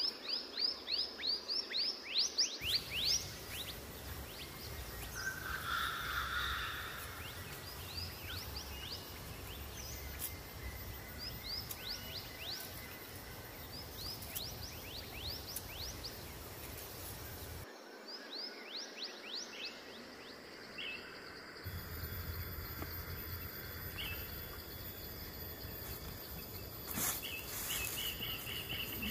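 Rainforest ambience: a rapid series of short, high chirps, several a second, over a steady background hiss. The chirps are densest and loudest in the first couple of seconds and keep returning off and on.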